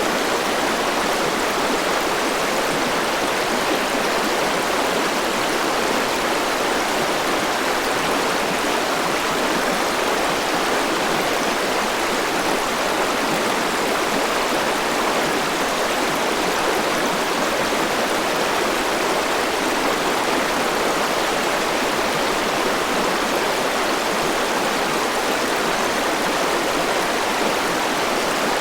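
Forest river rushing over rocks: a steady, even wash of flowing water.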